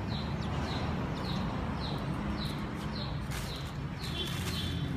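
An animal chirping steadily, short falling chirps about two to three a second, over a low steady hum.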